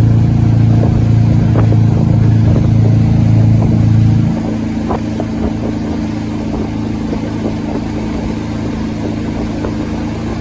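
Motorboat engine running steadily, easing off about four seconds in and continuing at a lower, quieter pitch.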